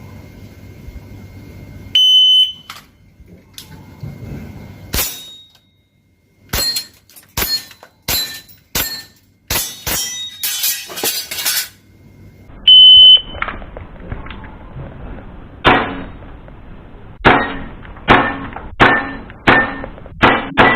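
Two loud, short electronic beeps from a shot timer, each followed by a string of sharp airsoft pistol shots striking a target plate: about ten quick shots after the first beep and six after the second.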